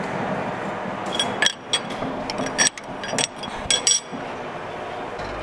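Metal lathe's spindle running down after drilling, a low steady hum, with about seven sharp metallic clinks between one and four seconds in.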